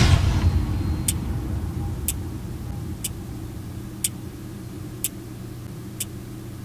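Clock ticking, one sharp tick about every second, over a steady low drone that slowly fades. A loud music hit dies away at the start.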